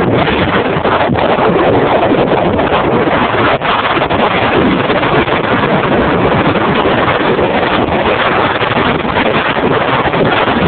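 Loud, steady wind rushing over the microphone on a fast downhill ski run, mixed with the hiss of snow sliding under the rider.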